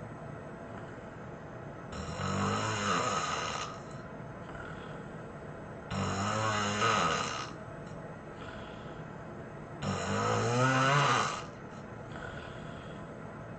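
A person snoring heavily in their sleep: three loud, rattling snores about four seconds apart, each lasting about a second and a half, with softer breaths between them.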